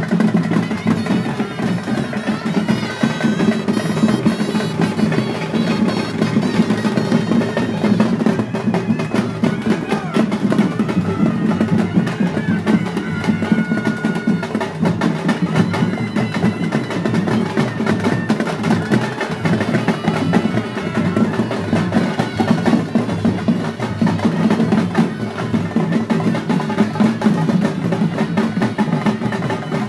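Festival procession drums playing a fast, unbroken rhythm, with a short high held note about halfway through.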